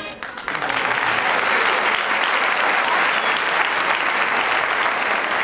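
Audience applauding, the clapping swelling about half a second in and then holding steady.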